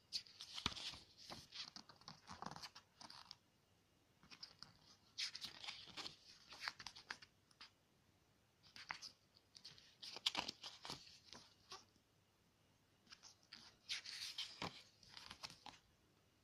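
Pages of a paper photobook being turned by hand: four bursts of paper rustling and crackling, a few seconds apart.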